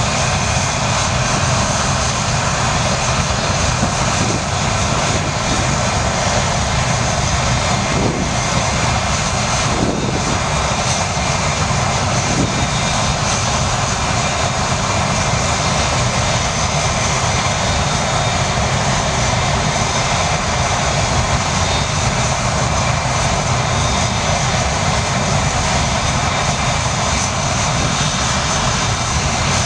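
Avro Vulcan B.2's Rolls-Royce Olympus turbojets running steadily on the ground at a constant power setting: a dense, even rush of jet noise with a steady high whine over it.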